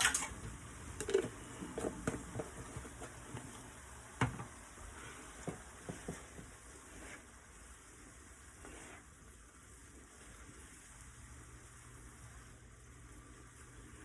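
Cooking utensil knocking and clinking against a pan, loudest at the very start and thinning out after about seven seconds, over food sizzling faintly in the pan.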